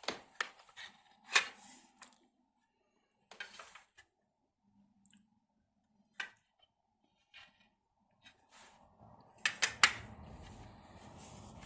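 Scattered handling noises: short clicks and light knocks with some rustling, sparse in the middle and getting busier with a steady rustle near the end.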